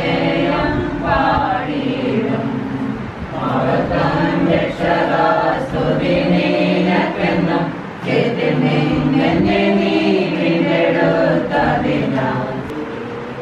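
A group of voices singing a hymn together at a home prayer meeting, in long held phrases with short breaks between them.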